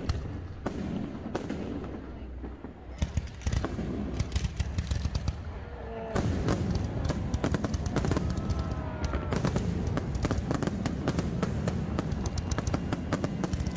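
Aerial fireworks exploding: scattered bangs for the first few seconds, then a rapid run of bangs and crackling from about six seconds in.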